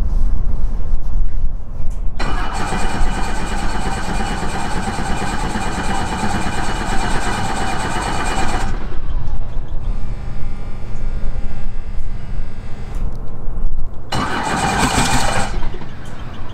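Cold start of a Robinson R44 helicopter's six-cylinder Lycoming piston engine: cranked and brought to life while the main rotor begins to turn slowly. It is loud from about two seconds in to about nine, quieter for several seconds, then comes one short loud surge near the end.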